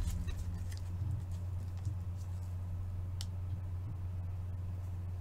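Steady low hum, with a few faint, scattered clicks.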